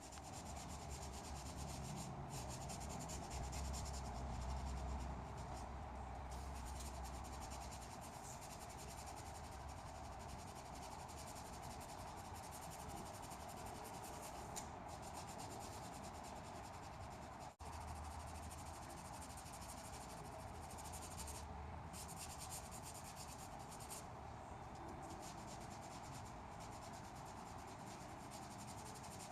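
Sandpaper rubbing steadily over cured body filler: hand block sanding with 180-grit paper to feather the edges of a fiberglass repair, with a brief break just past halfway.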